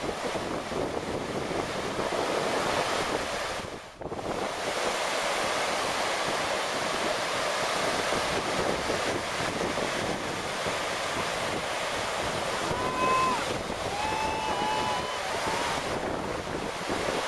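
Ocean surf breaking and washing onto a beach, with wind buffeting the microphone. A few short high-pitched calls sound faintly about two-thirds of the way through.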